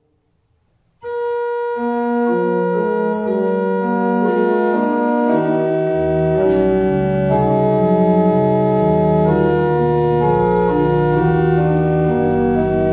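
Church organ playing a postlude after the closing blessing. After a second of near silence it starts on sustained chords in several voices, and deep pedal bass notes join about halfway through.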